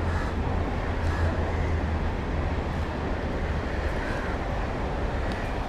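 Steady low rumble over a noisy outdoor background, easing about four seconds in.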